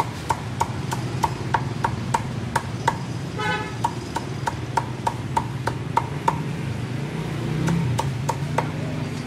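Rhythmic wooden knocking, about three sharp, ringing knocks a second, slowing to a few spaced knocks near the end, over a steady traffic rumble. A short vehicle horn toot sounds about three and a half seconds in.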